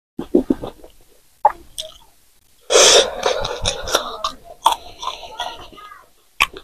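Close-miked mouth sounds of a man eating a raw green chilli: a few sharp clicks, then a loud sudden rush of noise about three seconds in, followed by chewing and mouth clicks.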